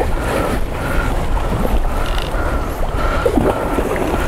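Fishing reel being cranked while fighting a fish, a short squeak repeating about twice a second, over steady wind noise on the microphone.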